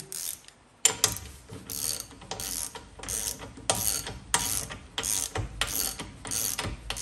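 Ratchet wrench clicking in a steady series of short back-and-forth swings, about two a second, starting about a second in. It is running down the central hub nut that holds the rear wheel bearing.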